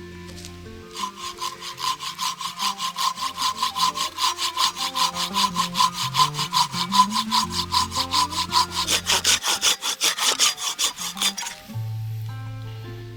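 Hand saw cutting through wood, likely firewood for the open fire, in quick, even back-and-forth strokes that stop about a second and a half before the end.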